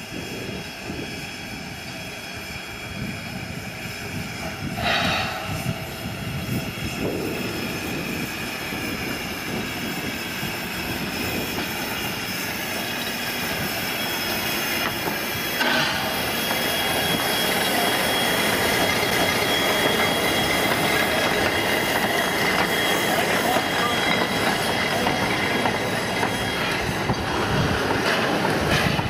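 W-class 4-8-2 steam locomotive W934 running slowly past at close range, steam and running gear growing louder as it approaches. A thin squeal of wheels on the rails carries through it. Two brief knocks come about 5 and 16 seconds in.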